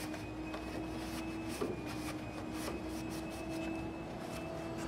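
Faint rubbing and rustling of a cloth rag wiping a metal corner post, with a small knock about one and a half seconds in, over a steady low hum.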